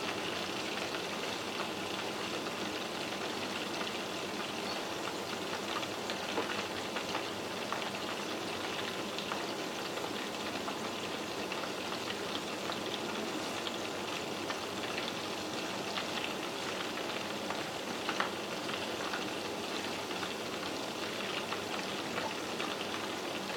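Breaded squid rings deep-frying in hot oil in a pan: a steady sizzle with fine crackling, the coating crisping to golden.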